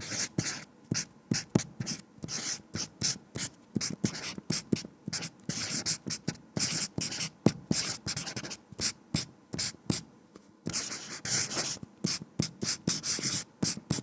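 Marker writing: a rapid run of short strokes of the tip across the writing surface, about three or four a second, with a brief pause about ten seconds in.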